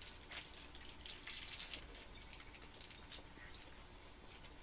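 Faint close-up eating sounds of people chewing soft chocolate-coated pies: irregular small wet clicks and smacks, a little busier about a second in.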